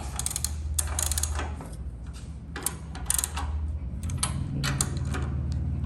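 Ratchet wrench tightening the mast lock bolts of a mill-drill, clicking in about five short bursts of rapid ticks as the handle is swung back and forth, over a steady low hum.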